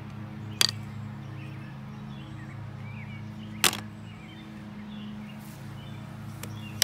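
Two sharp clicks about three seconds apart as a gray 3D-printed plastic bullet mold is pried apart, over steady low background music, with birds chirping.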